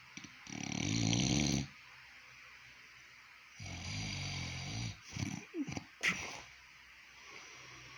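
An elderly man snoring in his sleep: two long, rattling snores about three seconds apart, followed by a few shorter, fainter sounds and a click.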